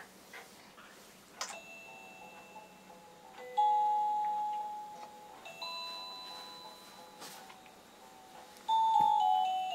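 Musical crib mobile playing a slow chime melody: single bell-like notes a second or two apart, each starting sharply and fading slowly.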